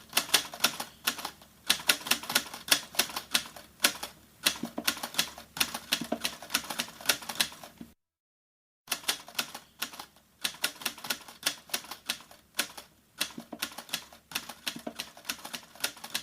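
Rapid typing on mechanical keys: a dense, irregular clatter of keystrokes that stops for about a second near the middle, then resumes.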